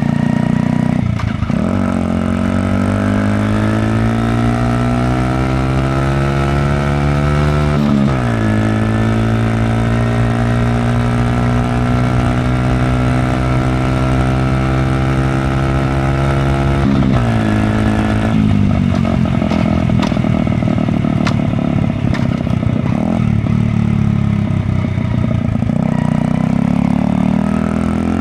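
Honda Magna 50's 49 cc single-cylinder four-stroke engine running loud through its stock muffler with the baffle removed, under way. The note climbs steadily through a gear, drops at a shift about 8 seconds in, climbs again, drops at another shift about 17 seconds in, then rises and falls with the throttle before climbing once more near the end.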